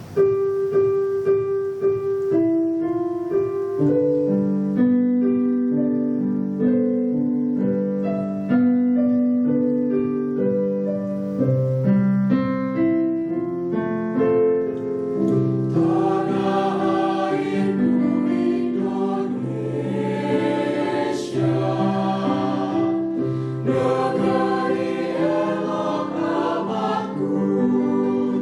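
School choir singing in harmony: a single vocal line opens, more voice parts enter one after another over the first few seconds, and from about halfway through the full choir sings louder and fuller.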